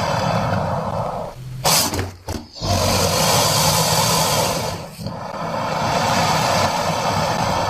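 Crocodile growling in long rough stretches, broken by a short pause about two seconds in and a brief dip about five seconds in.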